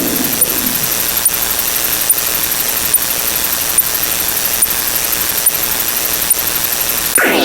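Steady static hiss with a faint click a little more than once a second.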